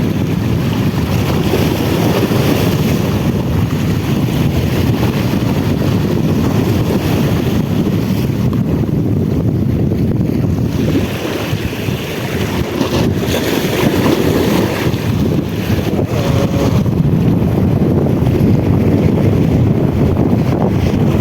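Strong sea wind buffeting the microphone: a loud, uneven rumble that rises and falls in gusts.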